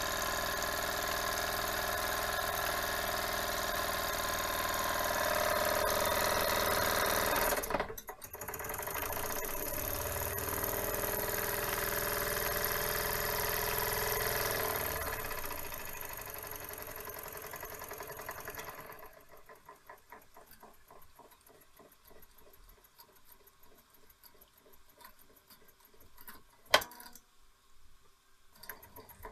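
Toy steam engine running on steam: a loud, steady whirring hiss that fades out about two-thirds of the way through, leaving a fast, even ticking from the engine. A single sharp click comes near the end.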